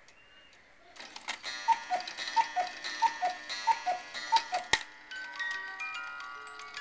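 Cuckoo clock striking the hour: about a second in, the cuckoo calls five times, each a two-note high-low whistle, over a ringing tune. A sharp clunk follows near the end of the calls, then the clock's music box plays a tinkling tune.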